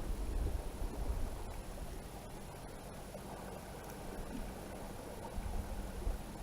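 Wind buffeting the microphone outdoors: an uneven low rumble in gusts, strongest in the first second and again near the end.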